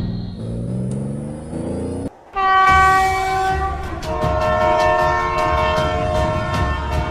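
A low engine-like tone rising in pitch, cut off about two seconds in. Then a loud, held train horn blast of several notes at once, changing to a second chord about four seconds in, with a rapid, even ticking behind it.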